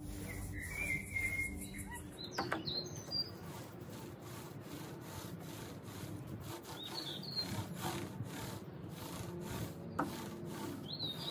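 Mini microfibre roller being rolled back and forth over a sanded timber tabletop, spreading hardwax oil: a soft, steady rubbing, with a couple of light clicks from the roller frame. A few short bird chirps sound in the background.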